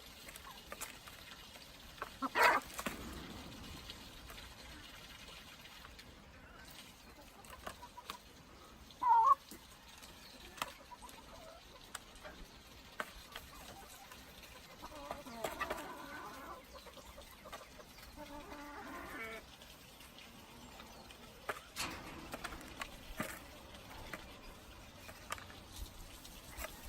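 Chickens clucking: scattered short calls, the loudest about two seconds in and about nine seconds in, with bursts of quicker clucks later on.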